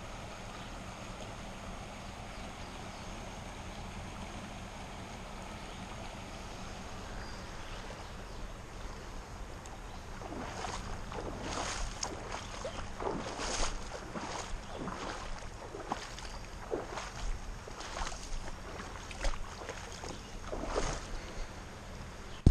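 Steady rush of a shallow, rocky creek. From about halfway there is a series of splashes, about one a second, from footsteps wading through the shallows.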